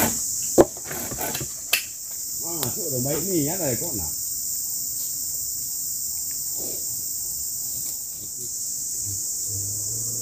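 Steady, high-pitched chorus of forest insects. Two sharp knocks come in the first two seconds, and a brief wavering call comes around three seconds in.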